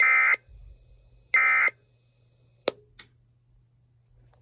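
The last two of three short bursts of EAS SAME digital data tones, about a second and a half apart: the end-of-message code that closes the alert. A sharp click and a fainter one follow, over a faint low hum.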